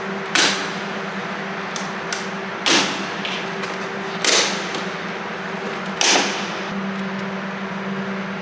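Four sharp knocks, spaced about one and a half to two seconds apart, as the Tesla Model 3 centre console parts are handled and worked on, over a steady low hum.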